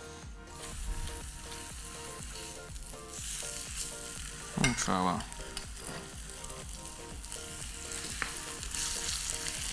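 Skin-on salmon fillet sizzling in hot oil in a frying pan as it sears skin side down, the hiss growing a little fuller about three seconds in. A short voice-like sound cuts in near the middle.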